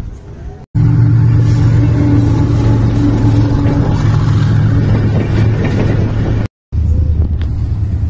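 Loud, steady low drone and rumble of a passing Pakistan Railways train, its diesel locomotive engine humming under the noise of the running gear. It starts abruptly under a second in, cuts out briefly near the end and comes back at a slightly lower pitch.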